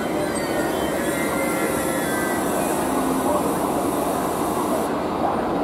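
E.483 electric locomotive moving slowly over station tracks: a steady rolling rumble of rail noise, with faint high wheel-squeal tones in the first second or so.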